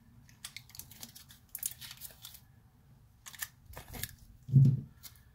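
Thin aluminium foil seal crinkling and tearing in scattered crackles as it is peeled off a hard drive's top cover with pliers, with a short low thud about four and a half seconds in.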